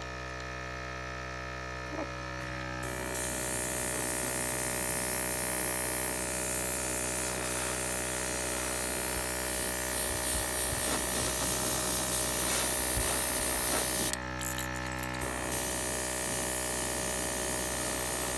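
Small airbrush compressor humming steadily while a gravity-feed airbrush sprays white paint at high pressure. The spray is a loud hiss that starts about three seconds in, stops for about a second near fourteen seconds, then resumes.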